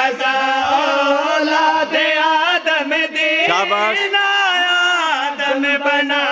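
A man's voice chanting a devotional verse in a sung, melismatic style, long notes bending up and down with hardly a pause.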